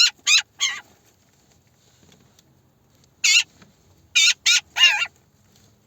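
Eurasian magpies giving short, harsh calls: three in quick succession at the start, a single call about three seconds in, then three more close together.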